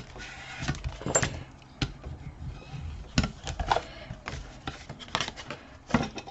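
Paper and cardboard being handled and pressed down on a craft table: scattered light taps, knocks and rustles, with a few sharper knocks near the middle and end.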